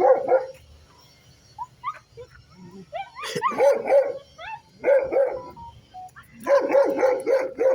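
Street dogs barking and yelping in bursts, with short high whines in between.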